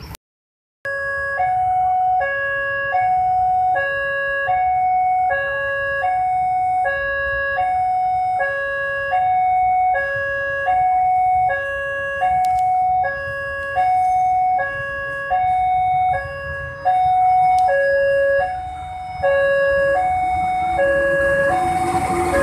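Electronic railway warning alarm sounding a steady two-tone hi-lo signal, a low and a high tone alternating about every 0.6 s, which warns that a train is approaching. Near the end the noise of a diesel locomotive passing close by rises under it.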